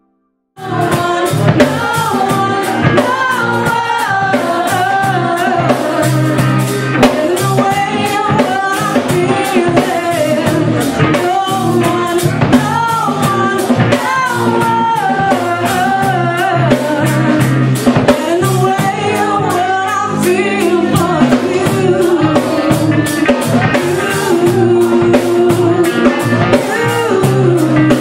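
Live band playing a song: a woman singing over electric guitar, bass guitar and drums. It starts abruptly about half a second in.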